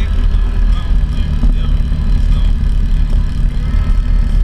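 Can-Am Maverick X mr side-by-side running steadily as it drives over a gravel creek bed, with a heavy, even low rumble from the engine and tyres.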